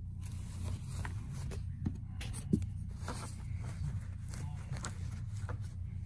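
Carpet pile and backing rustling and scraping under a hand as the carpet edge is pressed back down over a tucked-in cable, in irregular scratchy strokes and small clicks, over a steady low hum.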